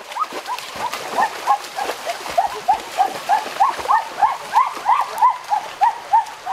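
An animal calling over and over in short arched chirps, about three or four a second, with water splashing in the first couple of seconds.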